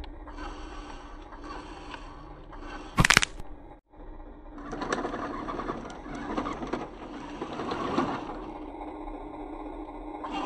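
Radio-controlled Mercedes-Benz Arocs dump truck's small electric motor and gearbox whirring as it crawls over rough concrete. It grows busier for a few seconds in the middle, and a brief loud sharp crack comes about three seconds in.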